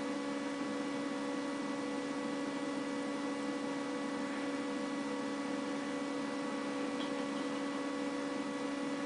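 Steady electrical hum made of several fixed tones over a constant hiss, unchanging throughout: the recording's background noise floor.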